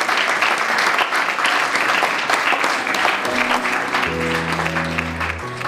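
A crowd applauding. About three seconds in, music comes in under the clapping: held chords over a deep bass note.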